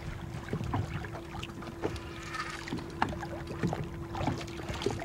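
Water splashing and knocking at the side of a boat as a hooked red drum is fought alongside, with scattered short splashes and a steady faint hum underneath.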